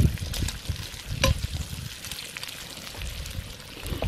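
Bacon sizzling and popping in a cast-iron skillet, with a few knocks of metal tongs against the pan near the start.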